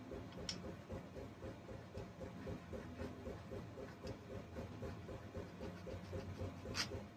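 Faint, quick, even back-and-forth scraping of a hand scraper on a carburetor's metal gasket surface, taking off old gasket material and corrosion, about five strokes a second, with two short clicks.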